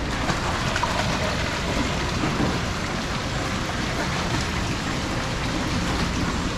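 Steady rush and splash of pumped water churning along an open clear-sided water channel, an even hiss like heavy rain.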